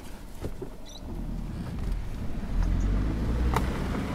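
Car engine and tyres on a gravel road, heard from inside the cabin as the vehicle pulls away. The low rumble builds over the first couple of seconds and then holds steady, with a single sharp click about three and a half seconds in.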